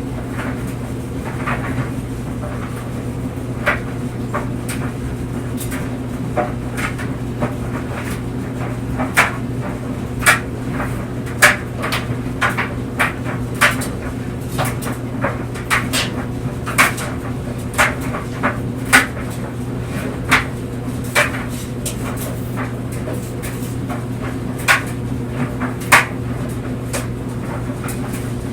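Clothes dryer running with a steady hum as the load of clothes tumbles in the drum, with irregular light knocks about once or twice a second.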